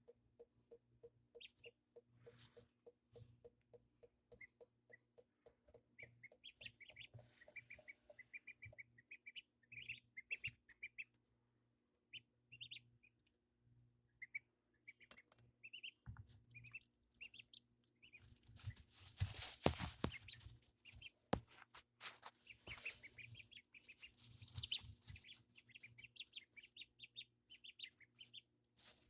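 Ducklings peeping in short, high chirps, with bursts of rustling and scuffling about two-thirds of the way through.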